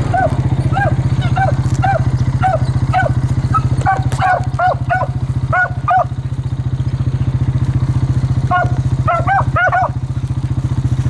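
Beagle hounds baying with short, repeated yelps, sometimes overlapping, pausing for a couple of seconds past the middle and then starting again, over a steady low engine-like drone.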